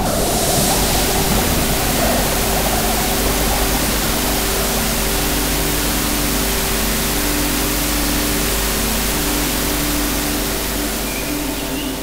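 Electronic score: a loud, steady wash of white noise over faint sustained low tones. The hiss sets in sharply at the start and thins out near the end.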